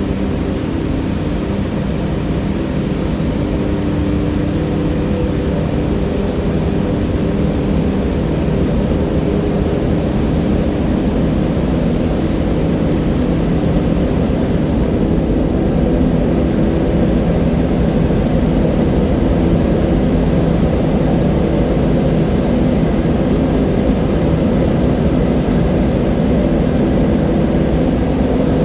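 River water rushing steadily, a loud, even, deep-toned flow with no breaks.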